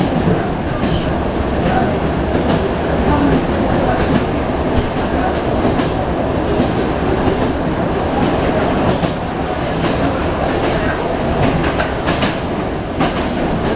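Inside the carriage of an ED9M electric multiple unit train running at speed: a steady rumble with the wheels' clickety-clack over the rail joints.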